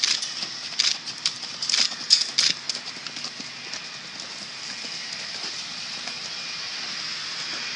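Hoofbeats of a young Paint filly cantering on soft sandy dirt: a few sharp hoof strikes in the first two and a half seconds, then mostly a steady hiss as the beats fade.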